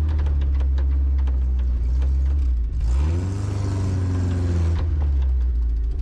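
1981 Ford Courier pickup's four-cylinder engine running through a glass-pack exhaust, holding a steady note, then revving up about three seconds in and dropping back down near the end.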